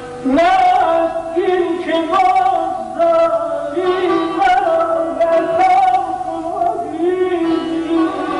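Persian classical vocal (avaz) in dastgah Shur: a voice holding long ornamented notes that glide and waver, over a tar plucked beneath it.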